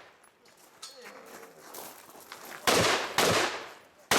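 Rifle shots: after a quiet pause, two shots about half a second apart, then a third near the end, each trailing off in a short echo.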